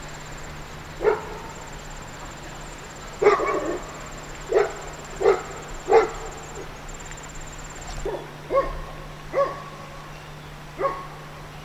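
A dog barking repeatedly, about eight short barks at uneven intervals.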